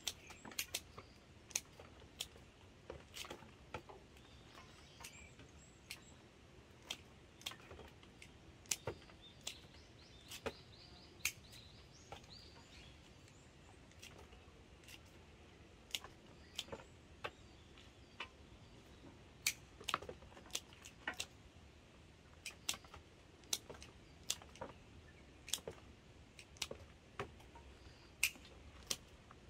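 Pruning shears snipping through hydrangea stems to make cuttings: sharp clicks at uneven intervals, roughly one or two a second, over a faint steady background.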